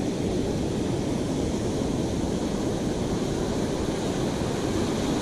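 Steady rush of breaking ocean surf washing up the beach, with wind on the microphone.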